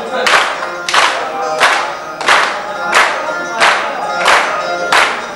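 A group of men clapping in unison on a steady beat, about three claps every two seconds, with music and singing behind.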